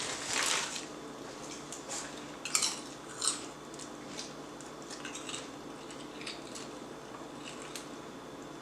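Scattered short clicks and crackles of a snack and its packaging being handled and eaten close to the microphone, with two louder ones about two and a half and three seconds in.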